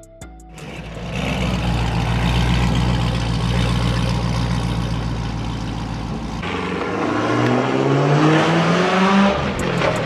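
Vauxhall VXR8's V8 engine running with a steady low rumble, then revving up as the car accelerates away. The pitch climbs for about three seconds, drops briefly near the end at a gear change, and climbs again.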